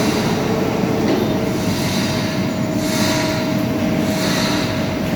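Line boring machine running: a steady, dense mechanical grinding noise with a thin steady whine through it.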